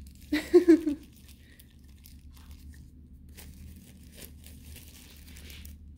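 Thin translucent sleeve crinkling and rustling as a pair of sunglasses stuck inside it is worked loose. A short pitched sound, the loudest thing here, comes about half a second in.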